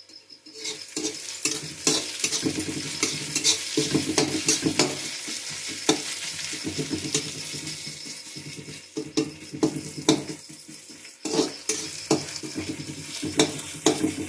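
Chopped onion with ginger and garlic sizzling in hot oil in a pan while a spatula stirs it, scraping and clicking against the pan. The sizzling starts about half a second in.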